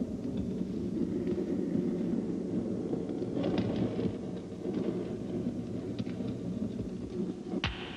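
A steady low rumble, with one very quick falling swoop near the end.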